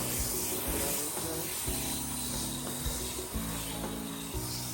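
Background music with held low notes that change every second or so, over a steady hiss of water spraying as transplants are watered in.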